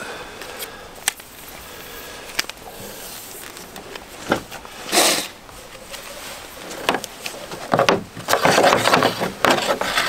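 Handling sounds while a stock tank heater's cord is fed through the drain hole of a plastic stock tank: a few light knocks and clicks on the plastic, a short rush of noise about halfway, and busier rustling and rubbing near the end.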